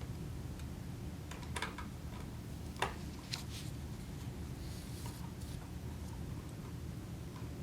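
A few light clicks and taps from the plastic pencil sharpener housing being handled, over a low steady hum.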